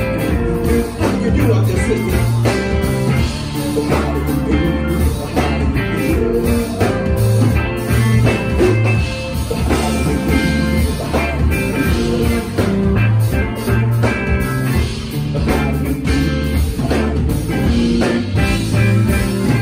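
Live rock band playing a song at full volume: electric guitar over a drum kit and bass, heard from within the audience.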